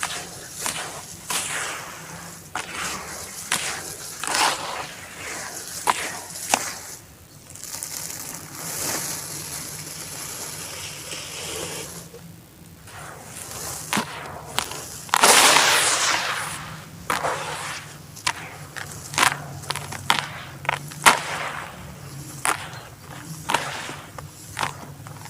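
Charcoal being crumbled and crushed by hand, with repeated sharp crackles and gritty crunching. There is a longer, louder gritty rush about fifteen seconds in.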